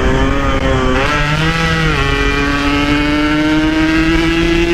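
Yamaha RX-King two-stroke single-cylinder motorcycle engine pulling under load, likely climbing a hill while still cold. The pitch rises about a second in, dips near two seconds, then climbs slowly and steadily.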